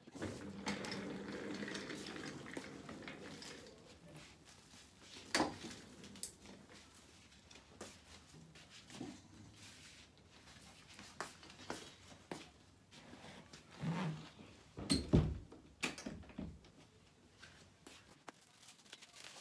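Chairs being moved around a small room: a metal-framed chair scraping along the floor for the first few seconds, then scattered knocks and bumps, the loudest a heavy thump about fifteen seconds in.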